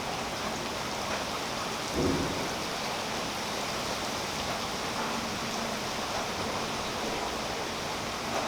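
Steady rain falling on a tree's leaves, an even hiss of many drops, with a single soft thump about two seconds in.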